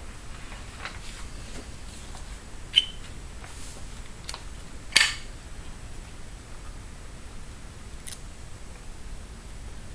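Small handling clicks and taps as tape and a paper template are worked onto a rotary encoder, with two sharp, louder clicks about three and five seconds in.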